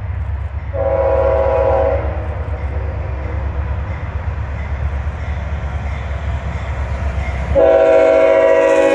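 Horn of a CSX freight locomotive sounding a multi-note chord: one short blast about a second in, then a long blast starting near the end, over a steady low rumble.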